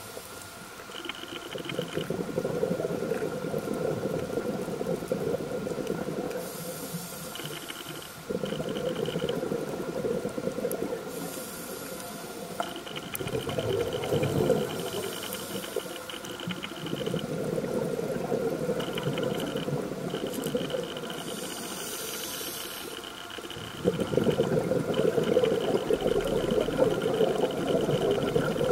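Scuba diver's regulator breathing underwater: long bursts of exhaled bubbles lasting several seconds, separated by short hissing inhalations.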